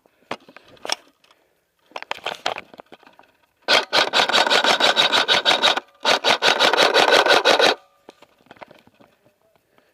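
KWA M4 airsoft electric rifle firing full-auto: two long bursts of about two seconds each, a fast even stream of shots, with a few shorter, quieter clusters of clicks before them.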